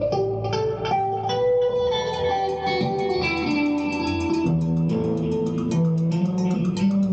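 A rock band playing an instrumental: electric guitar picking single notes over bass guitar. About two seconds in, the drums come in with a steady cymbal beat.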